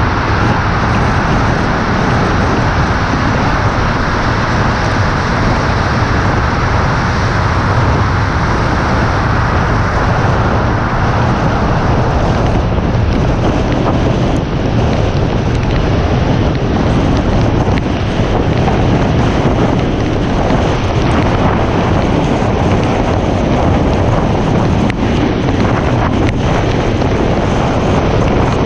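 Wind buffeting a hood-mounted camera's microphone as a car drives at speed, over a steady low road rumble and tyre noise on a wet road. The noise is fuller in the tunnel and thins about twelve seconds in, as the car comes out into the open.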